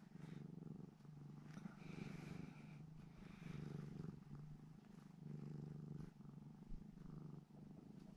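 Domestic cat purring close to the microphone, a faint low rumble that swells and eases about once a second with its breathing.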